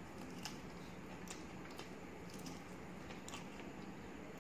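Close-miked chewing of a mouthful of rice and chicken liver kosha: irregular wet mouth clicks and smacks, about one a second, over a steady low hum.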